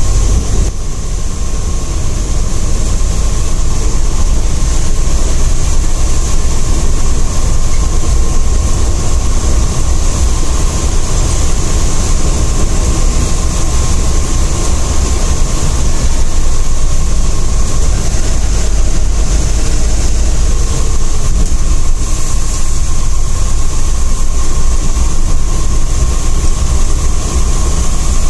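Intercity sleeper/seater coach's diesel engine and tyres droning steadily, heard from inside the front cabin while the bus is under way, with a deep rumble and a faint steady whine through it.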